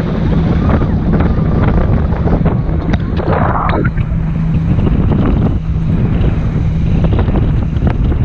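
Heavy wind buffeting the microphone and water rushing past an inflatable banana boat towed at speed over the sea, with a steady low hum underneath. A burst of splashing spray comes about three seconds in.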